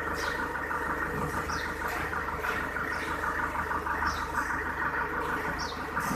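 Engine running steadily at idle, from the forklift or truck used to load a concrete mixer. A few short, high falling chirps sound now and then over it.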